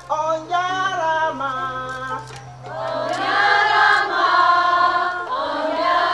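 Voices singing a chant without instruments: one voice sings a line, then a group of voices joins in together from about three seconds in, a call and response.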